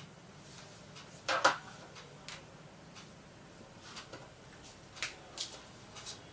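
Plastic whiteboard markers clicking and clacking against each other as they are handled: a few faint knocks, with one louder clack about a second and a half in.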